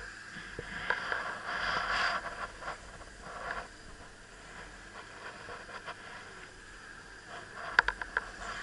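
Chairlift ride heard through a small camera's microphone: steady rustling and wind hiss with scattered small knocks. Near the end comes a quick run of three or four sharp clicks as the chair passes over a lift tower's sheave wheels.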